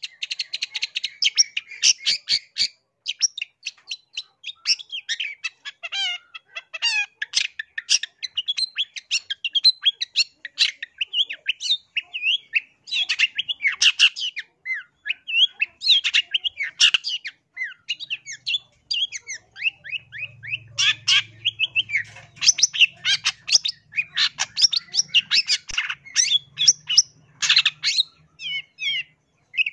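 Long-tailed shrike (cendet) singing: a fast, nearly unbroken run of short chattering notes and quick slides in pitch, with only brief pauses.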